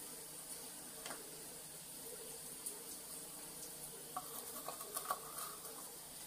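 Faint rustle of small dry grains being handled and dropped into a steel bowl of water. A cluster of light clicks and small splashes comes a little after four seconds in.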